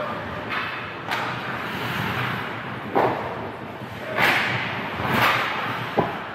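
Ice hockey play: several sharp cracks and thuds of sticks and puck, with a couple of brief hissing scrapes of skates on the ice around the middle.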